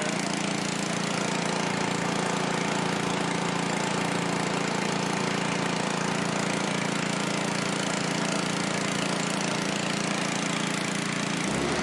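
13 HP Honda single-cylinder engine running steadily on wood gas from a gasifier, driving a generator. A deeper hum joins just before the end.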